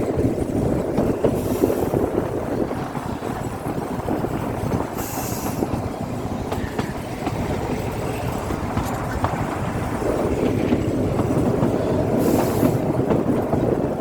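Him Darshan Express narrow-gauge toy train running on the Kalka–Shimla line: a steady rumble and clatter of wheels on rails, with three short high hisses about a second and a half, five seconds and twelve seconds in.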